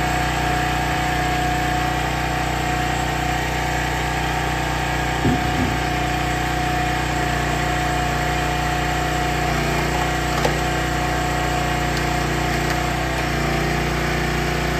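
Small gas engine of a CountyLine log splitter running steadily at a constant speed while birch logs are split, with a couple of brief knocks about five and ten seconds in.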